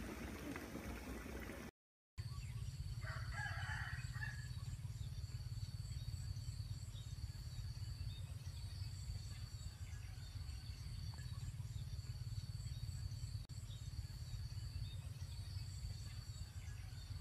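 Water churning and bubbling in a small muddy pit, cutting off suddenly after under two seconds. Then a rooster crows once about three seconds in, over a steady low rumble and a steady high-pitched whine.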